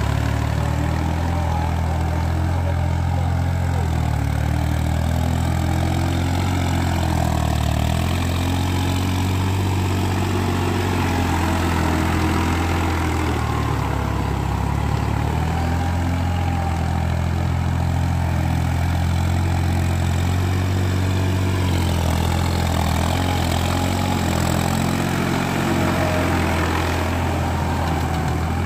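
Farm tractor's diesel engine running steadily under load as it pulls a rotary tiller through flooded paddy mud, its pitch wavering slightly at times.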